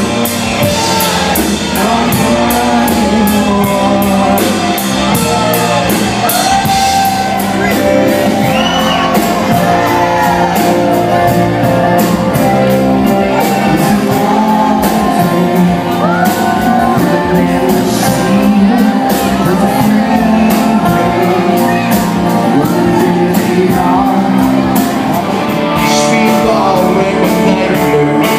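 Rock band playing live: a singer over guitars and drums with a steady beat.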